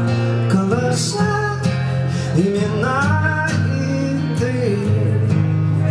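Live acoustic song: a man sings a sliding, held melody line over a steadily strummed acoustic guitar.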